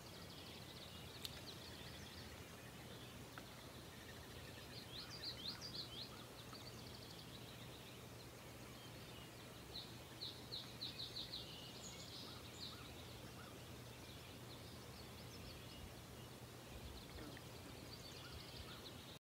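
Songbirds calling at dawn: scattered high chirps, with two quick runs of rapidly repeated notes about five seconds in and again about ten seconds in, over a faint steady hiss and low hum.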